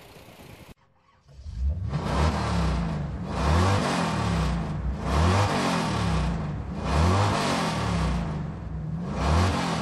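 Car engine being revved again and again, about five rises and falls in pitch in quick succession, starting about a second in.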